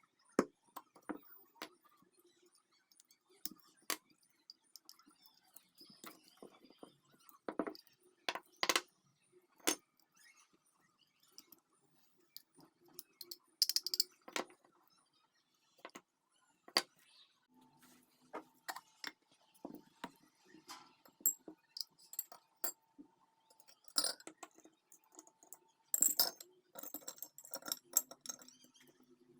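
Small metal lighter parts clinking, tapping and rattling as they are handled, with many scattered sharp clicks and knocks at irregular intervals. A faint steady hum sits underneath in the second half.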